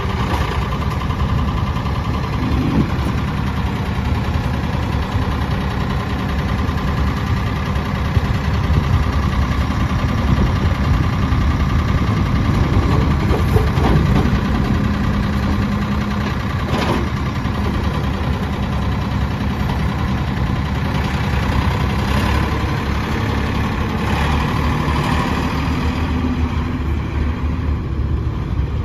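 Ford 455C loader backhoe's 59.5 HP Ford diesel engine running steadily. Its note shifts a little around the middle and again near the end, and there are a few sharp clanks about halfway through.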